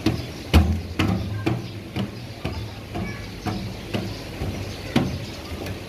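Footsteps climbing metal stairs with checker-plate treads: a steady tread of about two steps a second, each step a sharp knock with a low thud.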